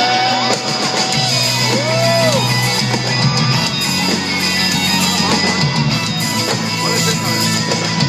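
Live rock band playing an instrumental passage led by electric guitar, with notes that bend up and down.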